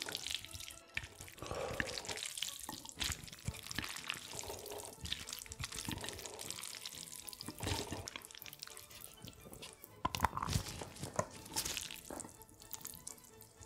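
Close-miked eating sounds: irregular wet clicks and smacks of food being chewed and handled.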